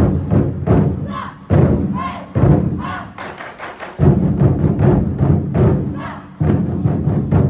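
Twenty-four festive drums, large Chinese barrel drums, played by an ensemble in fast, driving strokes of about five or six a second. The drumming swells suddenly into loud unison passages several times, about a second and a half, two and a half, four and six and a half seconds in.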